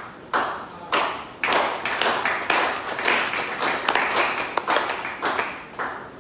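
Congregation clapping: a few separate claps, then a thick burst of applause from about a second and a half in that dies away near the end.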